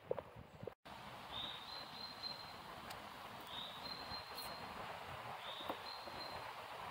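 A few sharp high-heel footsteps on a paved path, then a steady outdoor background hiss with a bird repeating a short high call about every two seconds.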